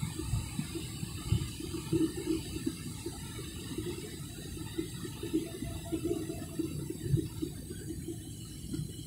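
Airliner cabin noise: a steady low rumble with irregular light knocks and rattles, a few stronger ones about a second and a half in, at two seconds, and near seven seconds.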